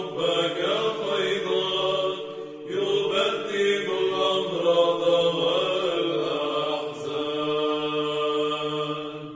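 Monks' choir singing an Arabic Byzantine troparion in Orthodox chant: the melody moves over a steady held low drone (the ison), and the final note dies away at the very end.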